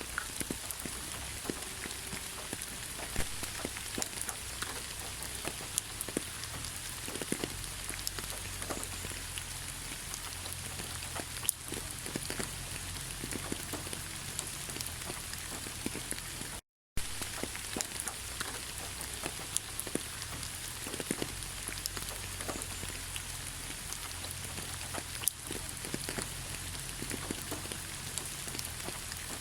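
Heavy rain falling steadily: a dense, even hiss dotted with many sharp individual drop impacts. A little past halfway the sound cuts out completely for a split second, then resumes unchanged.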